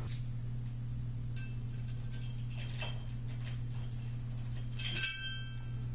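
Metal bed brackets and hardware clinking as they are handled and fitted: a few light clicks, then a louder ringing clink about five seconds in, over a steady low hum.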